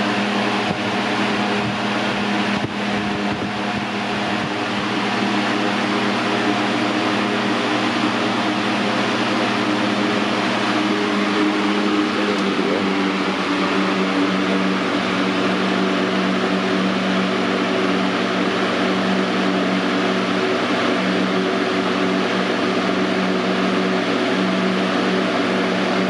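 Air King model 9723 box fan with an 8-pole motor, running steadily on high speed: an even rush of moving air over a steady motor hum.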